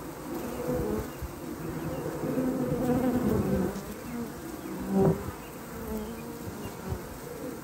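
Honey bees buzzing at a hive entrance: many wingbeats overlap into a hum that rises and falls as bees fly in and out, with one louder buzz about five seconds in.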